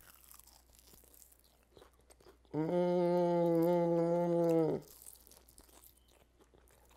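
Someone biting into and chewing a crispy double-fried chicken wing, with faint crunches. About two and a half seconds in comes a long, steady hummed 'mmm' of enjoyment lasting about two seconds.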